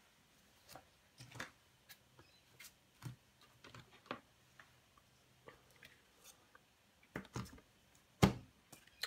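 Faint scattered taps, clicks and rustles of card stock and plastic stamping tools being handled and set down on a craft mat, with a louder knock about eight seconds in.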